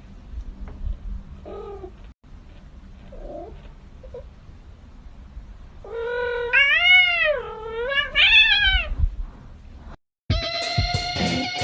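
A cat giving a long, drawn-out meow that rises and falls in pitch, in two joined calls about six seconds in. After a brief dropout near the end, music with electric guitar starts.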